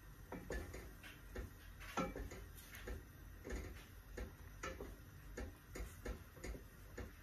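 Wooden spoon knocking lightly and irregularly against the side of a stainless steel pot while fusilli pasta is stirred, about two or three knocks a second.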